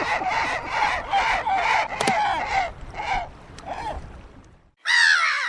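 Gulls calling: a flock's quick, overlapping calls about five a second that fade out three to four seconds in. After a brief silence, a single loud gull call with a falling pitch comes in near the end.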